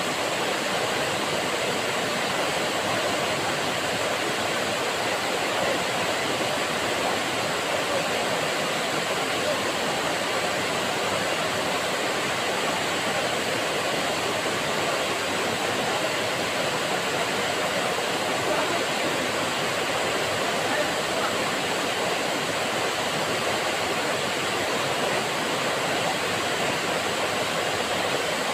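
Waterfall cascading down a rock face into a pool: a steady, unbroken rush of falling water.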